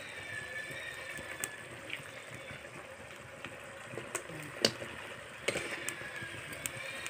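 Curry gravy bubbling in a wok, with a few sharp metal clinks from the spatula and steel bowl against the pan as raw chicken pieces go in; the loudest clink comes about four and a half seconds in.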